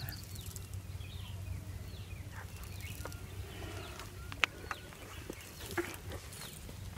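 Faint, steady rustling of a dense column of large foraging termites swarming over dry leaves and soil. Scattered faint bird chirps and a few light ticks, the sharpest about four and a half seconds in.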